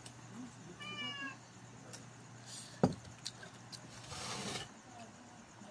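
A cat meows once, a short high call, about a second in. A sharp knock near the middle is the loudest sound, followed a little later by half a second of crackling noise.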